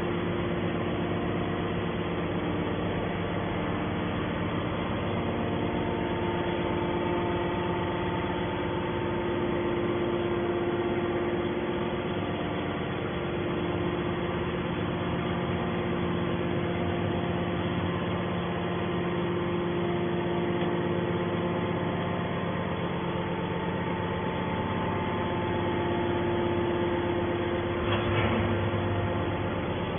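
Hydraulic scrap metal baler's power unit running with a steady, even hum. A brief rougher noise comes near the end.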